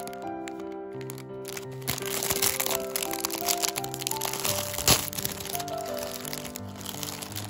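Clear plastic snack wrapper crinkling and tearing as it is pulled open by hand, from about two seconds in, with one sharp crack about five seconds in, over background music.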